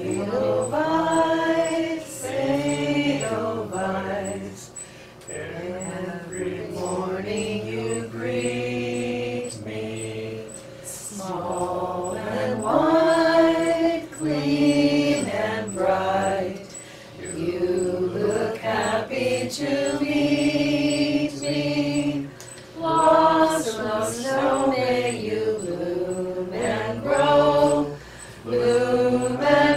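A small group of voices singing a slow song together, with long held notes and short pauses between phrases.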